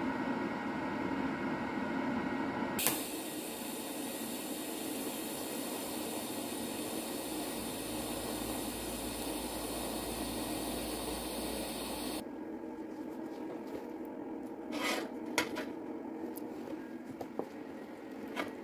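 TIG welding arc from a Jasic TIG 200 inverter welder on steel: a steady hum, then a sharp click about three seconds in as the arc starts. It burns with an even hiss for about nine seconds and cuts off abruptly, followed by a few light clicks and knocks.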